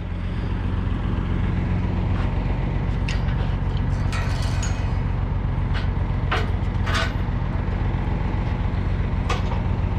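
Deuce-and-a-half army truck's engine running steadily as the truck pulls a disc harrow through soft ground, with a few short sharp knocks.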